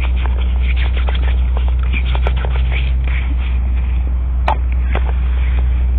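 Steady low hum with faint scattered clicks and rustles, and one sharper click about four and a half seconds in.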